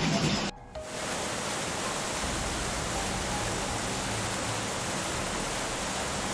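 Steady, even rushing of fast-flowing floodwater, beginning at an abrupt cut about half a second in from a brief stretch of rain-like noise.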